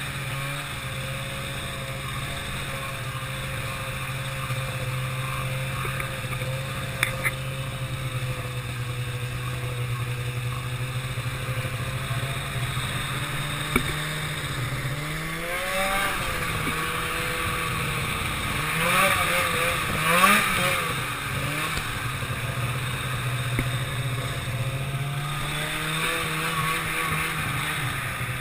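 Ski-Doo snowmobile engine running steadily under way, its pitch rising and falling with the throttle in the middle stretch, where it is loudest. A few short sharp knocks in the first half.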